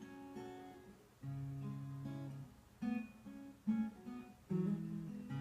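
Acoustic guitar playing a short instrumental passage: a few strummed chords about a second apart, each left to ring out.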